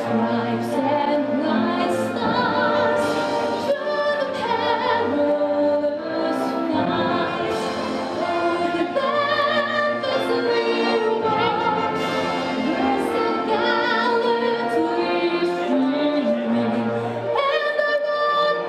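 A woman singing a national anthem solo in a trained, operatic style with strong vibrato, holding long notes, over a low accompaniment.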